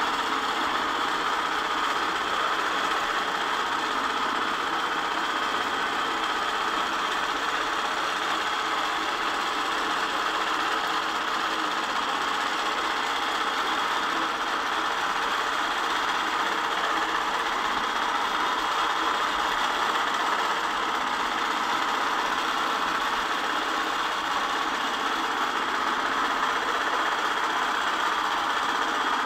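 Longarm quilting machine stitching continuously: a steady, even mechanical running sound with no pauses or changes in pace.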